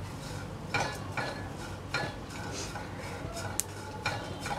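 Spatula stirring dried karandi shrimp while they dry-roast in a nonstick kadhai: several uneven scraping strokes against the pan with the dry rustle of the shrimp being tossed.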